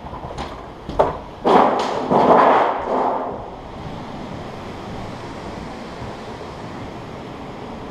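Movement noise from a player on the move: a few sharp knocks, then a loud stretch of rustling and scraping of clothing and gear against the microphone, settling into a steady low hiss.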